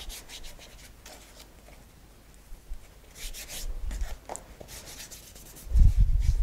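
Hands rubbing and smoothing a sheet of sugarpaste over a cake, a soft scratchy rustle, with a few louder rasps partway through. Near the end come several dull thuds as the icing is pressed down against the cake board.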